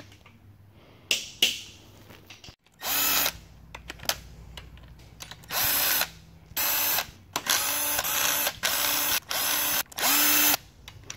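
A handheld power driver spinning in about eight short bursts, each under a second, backing out the cam bearing cap bolts on a Ford Coyote V8 cylinder head. Two sharp clicks come about a second in.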